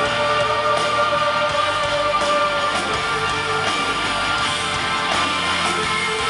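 Live rock band playing an instrumental passage, electric guitar to the fore over bass and drums, with no singing.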